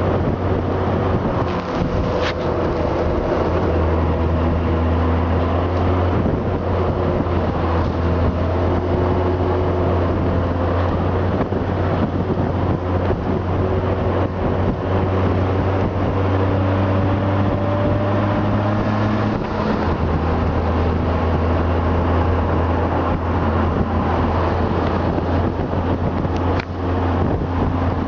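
Honda Gold Wing's flat-six engine running steadily while the motorcycle rides along, its note shifting slightly a few times, with wind and road noise rushing past.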